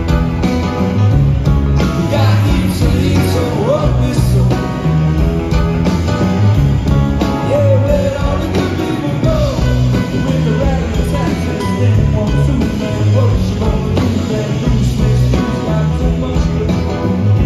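A live band playing a song with electric and acoustic guitars, drums and keyboard, with a voice singing over it, heard from among the audience in a concert hall.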